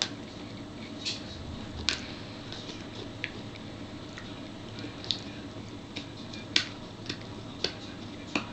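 Siberian husky puppy chewing a wooden stick: irregular sharp cracks of teeth biting on wood, about ten in all, unevenly spaced.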